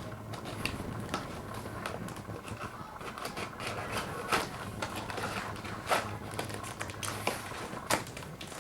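Cardboard packaging being handled and worked open by hand: irregular scrapes, taps and rustles of boxes and tape, with a steady low hum underneath.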